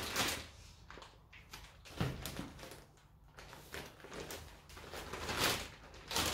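Irregular rustling and scraping from hands working with potting soil and its bag during repotting, with a soft knock about two seconds in.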